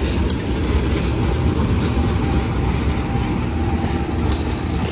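KAI CC201 diesel-electric locomotive running as it rolls away along the station tracks, a steady, even engine rumble with no sharp events.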